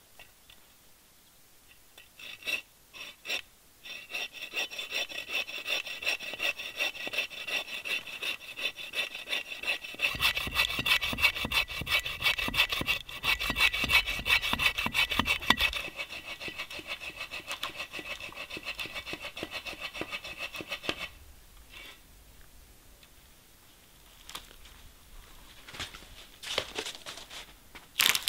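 Folding bow saw cutting through a dead standing tree trunk with rapid back-and-forth strokes. It starts after a couple of seconds, is loudest for a stretch in the middle, and stops about three-quarters of the way through. Near the end come a few sharp cracks as the cut trunk is pushed over.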